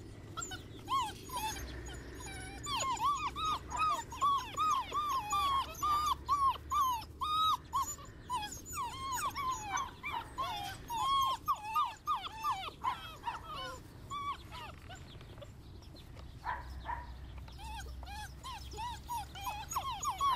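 Seven-week-old German Shorthaired Pointer puppies whining and whimpering: a long run of short, high, arching cries, several a second, with a brief lull about three-quarters of the way through. Pitiful crying of penned puppies wanting out or wanting attention.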